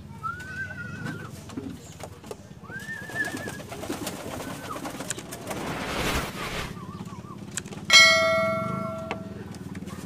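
Domestic pigeons cooing, with short warbling calls over it. About six seconds in comes a whoosh, and at about eight seconds a bright bell chime rings out suddenly and fades.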